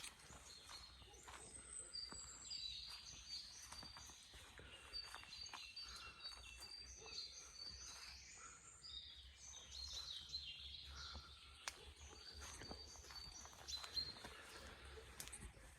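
Faint birdsong: several birds giving repeated high-pitched chirps and short gliding notes, with scattered soft clicks.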